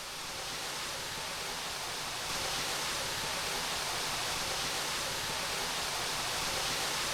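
A steady rushing hiss with no distinct tones, growing louder over the first couple of seconds and then holding even.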